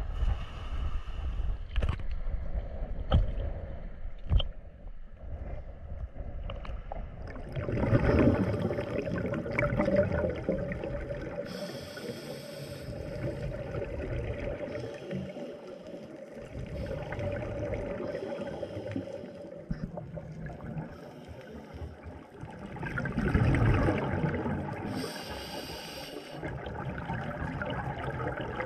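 Wind and surf on a beach for the first few seconds. Then, after a cut about seven seconds in, underwater camera audio: the muffled hiss and gurgle of scuba breathing, with bursts of exhaled bubbles swelling every few seconds.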